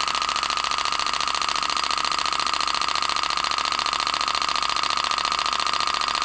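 Sun Motor solar Stirling engine with two flywheels running steadily and fast, heated by a small spirit burner: a rapid, even mechanical rattle with a steady high tone in it.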